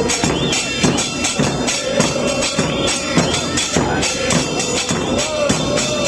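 Football supporters' chant: a group of voices singing a terrace song over a steady beat of drums and bright percussion.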